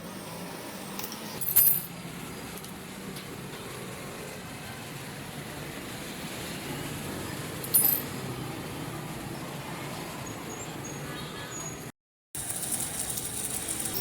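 Steady workshop background noise broken twice by sharp metallic clinks with a high ringing tail, about a second and a half in and again near eight seconds. The sound cuts out abruptly near twelve seconds and resumes with a brighter hiss.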